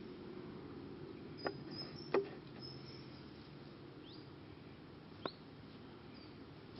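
Apennine wolf gnawing on a stick, with a few sharp cracks about a second and a half in, just after two seconds (the loudest), and past five seconds. Faint high chirps sound over a low steady hiss.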